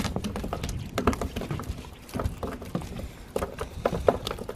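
Irregular knocks, taps and slaps on wooden wharf decking: footsteps on the boards and a freshly landed kahawai flapping on the deck.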